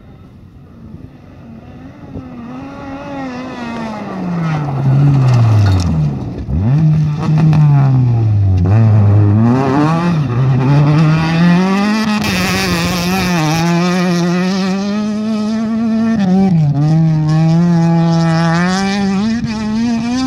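A rally car's engine running hard on a gravel stage, growing loud as the car closes in. The engine note falls as it slows for a corner, then climbs and drops again and again as it accelerates away. A spell of hiss about halfway through is the tyres and spraying gravel.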